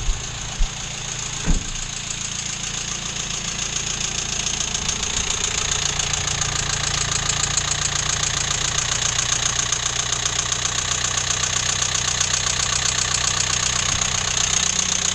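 Renault Megane engine running with its drive belt removed, a steady rhythmic knock coming through the engine noise. The knock persists without the belt, so it comes from inside the engine rather than the belt-driven accessories; the mechanic suspects the crankshaft. A few short handling knocks sound in the first couple of seconds.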